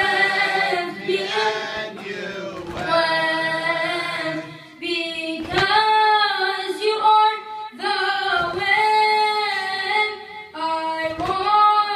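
A boy's voice singing an unaccompanied latmiya (Shia mourning lament), in long held, wavering notes with short breaks for breath.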